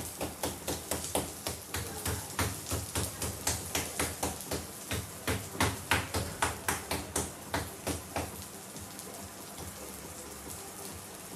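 A quick, even run of knocks or taps, about three a second, that stops about eight seconds in, leaving a soft steady hiss.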